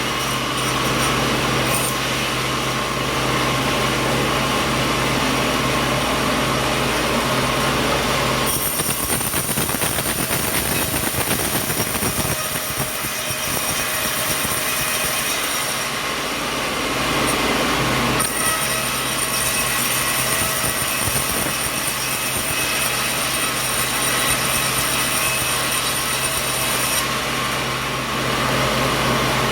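Sawmill machinery running steadily while coconut wood is sawn, its sound shifting about 8 seconds in and again about 18 seconds in.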